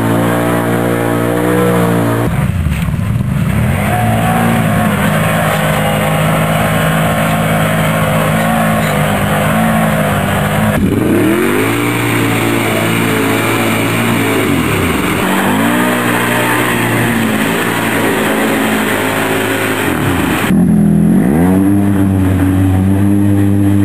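ATV quad engines revving hard and dropping back again and again, pitch rising and falling, as several short clips follow one another with abrupt changes in sound about two, eleven and twenty-one seconds in.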